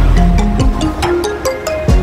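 Background music with a steady beat: deep bass notes and kick drums under evenly ticking percussion.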